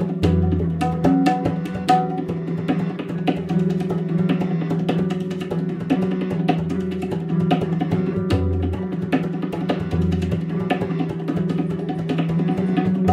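Instrumental background music: a percussion rhythm of sharp, regular clicks and drum strokes over a sustained low bass line.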